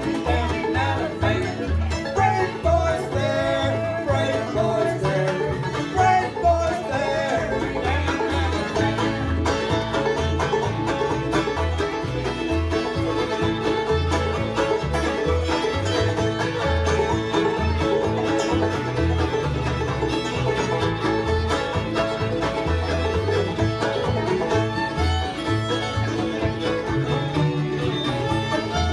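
Old-time string band playing live: fiddle, banjo, mandolin, acoustic guitar and upright bass together, the bass plucking a steady beat under the melody.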